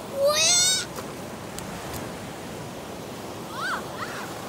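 A child's high-pitched, quavering shriek, under a second long, as surf washes over, followed near the end by a couple of short, fainter squeaks. Steady hiss of breaking surf underneath.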